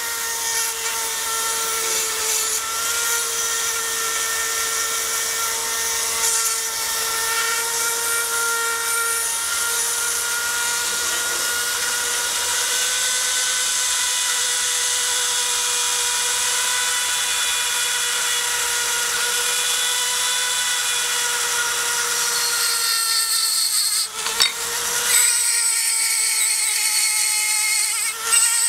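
Small pen-style rotary tool running at a steady high whine while its small bit grinds and polishes the metal chimney and case of an old petrol lighter, with a grinding hiss over the whine. Near the end the whine dips briefly, with a couple of sharp clicks.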